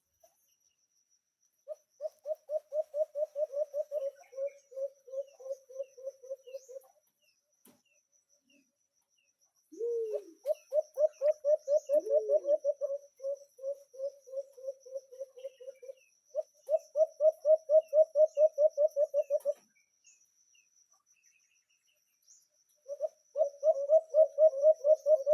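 A bird giving long series of rapid low hooting notes, about eight a second, each series running several seconds; there are four series, with two short falling notes near the middle.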